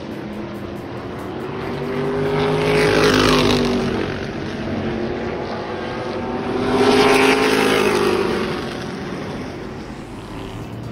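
Race car engines running at speed around an oval track. The sound swells twice, about three and seven seconds in, as cars pass, and the engine note rises and then falls as each one goes by.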